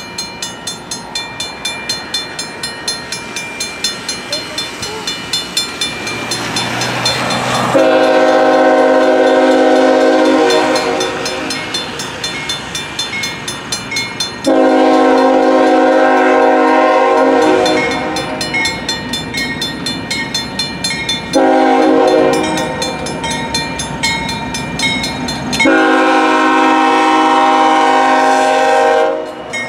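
Norfolk Southern diesel locomotive horn sounding four blasts, long, long, short, long: the standard warning for a grade crossing as the train approaches. Under it a crossing bell rings rapidly and steadily.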